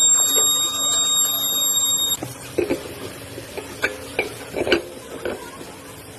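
A steady, high-pitched squeal that stops abruptly about two seconds in, followed by a few scattered clicks and knocks, in keeping with a car's rear brake disc and wheel assembly.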